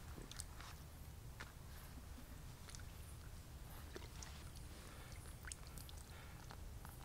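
Faint scattered clicks and rustles, about a dozen over several seconds, over a steady low rumble.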